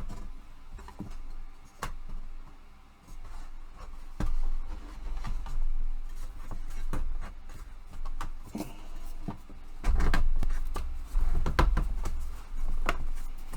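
Scattered clicks and knocks with low handling rumble as slotted pieces of a flat-pack hobby tool rack are lined up and pushed into their slots; the handling gets heavier near the end.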